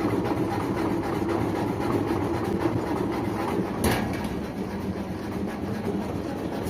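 Top-loading washing machine running with its tub off balance, a steady clattering rattle with one louder knock about four seconds in. The repairer puts it down to the clothes bunched to one side and a missing suspension spring at the back of the tub.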